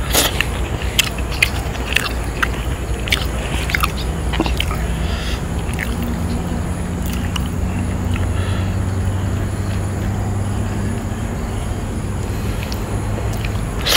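An engine humming steadily in the background, with scattered sharp clicks over the first few seconds.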